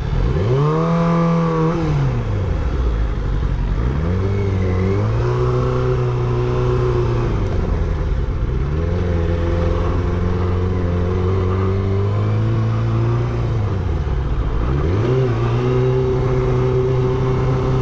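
Motorcycle engine under way: its pitch climbs and falls back about a second in, then rises again and holds, dipping and climbing three more times as the throttle closes and reopens.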